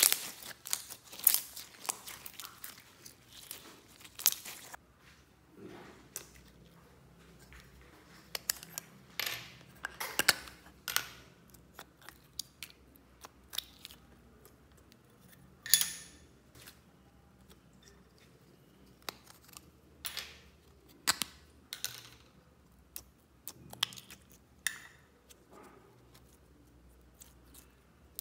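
Slime being squeezed and worked by hand: sharp wet clicks and pops at irregular intervals, densest in the first few seconds.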